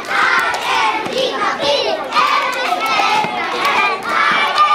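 A group of young boys shouting a cheer together while clapping their hands.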